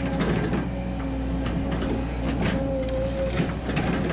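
Volvo 140 hydraulic excavator working, heard from the cab: a steady diesel engine hum with a hydraulic whine that swells and fades as the bucket moves. The bucket scrapes and knocks through soil and roots many times.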